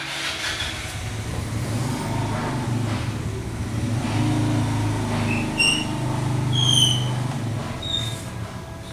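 A motor running steadily with a low rumble that swells and eases, and a few short high chirps or squeaks over it in the second half.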